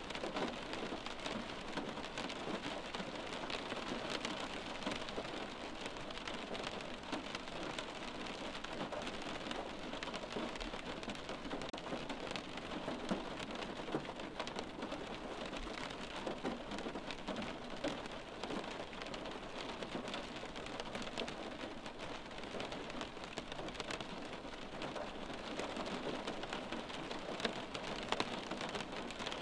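Steady rain falling, with individual drops heard as many sharp little ticks and a few louder drop hits about halfway through and near the end.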